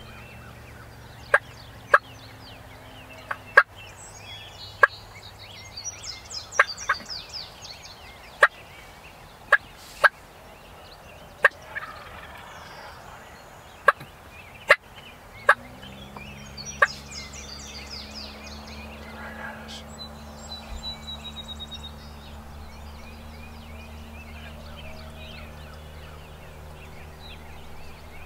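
Wild turkey giving sharp, single clucks at irregular intervals, about fifteen in all, most of them in the first half and stopping after about seventeen seconds.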